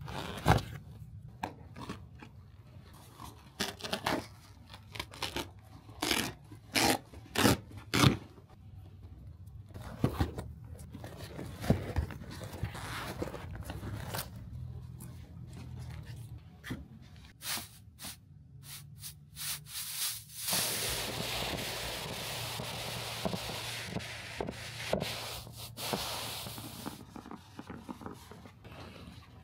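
Hand work on a car seat's upholstery: a run of sharp clicks and short noisy strokes, then a steady hiss lasting about six seconds near the end.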